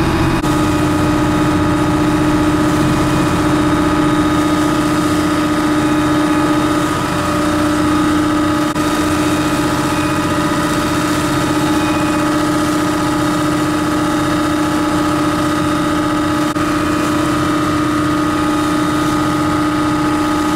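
A passenger boat's engine running steadily, heard on board as an even hum over the noise of the hull moving through the water.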